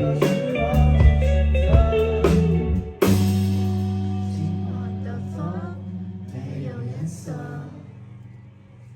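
Rock band music with guitar and drums; about three seconds in a final chord is struck and left to ring out, fading slowly away.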